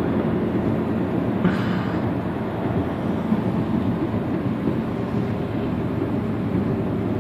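Mini Cooper's engine running steadily with road and wind noise, heard from inside the cabin at road speed.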